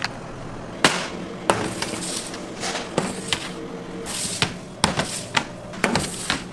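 Metal baking trays knocking and clattering on a stainless-steel work counter: irregular sharp knocks, a few brief rustles, over a faint steady hum of bakery equipment.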